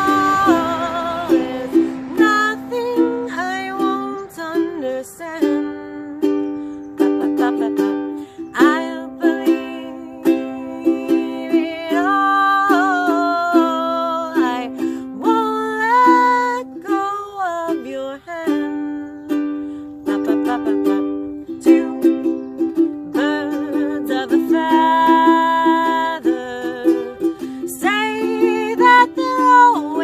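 A woman singing a slow melody with wavering held notes, accompanying herself on ukulele with steady strummed chords.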